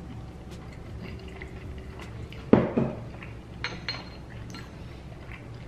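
Tableware sounds: a heavy knock about two and a half seconds in, then a metal spoon clinking twice against a plate, the second clink ringing briefly.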